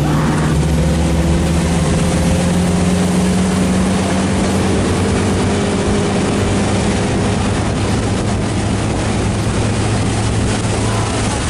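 Motorboat engine running steadily at towing speed, its hum holding one pitch, over the rush of water and wind from the wake.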